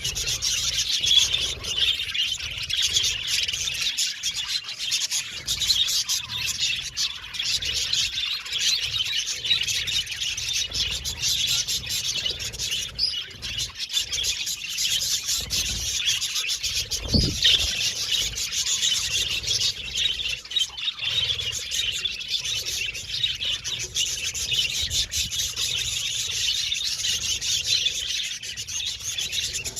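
A flock of budgerigars in an aviary chirping and chattering nonstop, many birds calling over one another in a dense, high twitter. A single dull low thump sounds a little past halfway.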